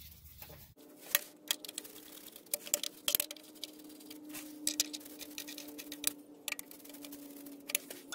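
Hand ratchet and socket clicking in short irregular bursts as it runs the Allison 1000 transmission pan bolts down to hand tight, under a faint steady hum that begins about a second in.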